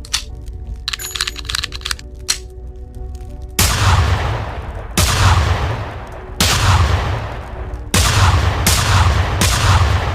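Smith & Wesson Model 586 .357 Magnum revolver: a few light metallic clicks, then four loud shots about a second and a half apart, each with a long echoing tail.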